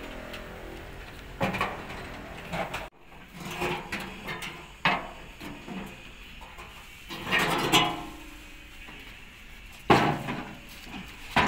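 Steel cover panels of an excavator being handled and set against the machine, giving a series of separate metal clanks and knocks, the loudest about ten seconds in.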